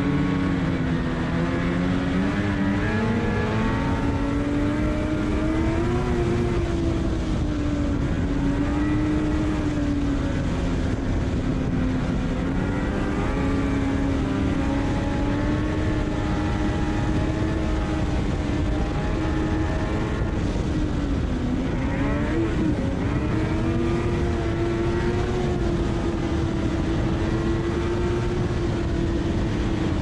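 Ski-Doo MXZ Blizzard two-stroke snowmobile accelerating hard from a stop to trail speed: the engine's pitch climbs over the first couple of seconds, then holds high and steady as the sled gathers speed, dipping briefly and picking back up about two-thirds of the way through. Constant wind and track noise runs underneath.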